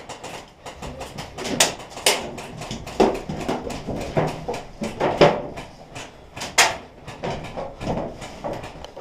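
Irregular knocks, clicks and shuffling of players moving on foot with their gear, a handful of sharper knocks standing out among them.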